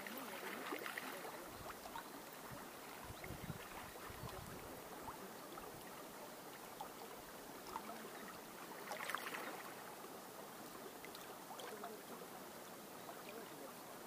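Small wind-driven ripples lapping at a reedy riverbank: a faint, steady water wash with little splashes. Wind buffets the microphone as a low rumble about two to four seconds in.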